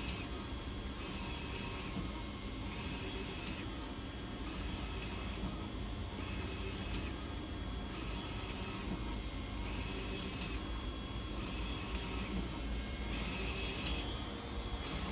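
UV flatbed printer printing on wood. The print-head carriage shuttles back and forth across the bed, so its whir repeats in a regular cycle about every two seconds over a steady low machine hum.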